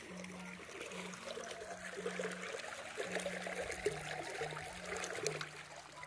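Water running and trickling along a narrow irrigation channel between rice paddies, an even splashy flow that grows a little louder about two seconds in.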